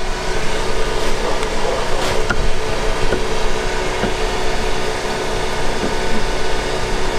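A steady machine drone with a constant hum, with a few faint clicks over it.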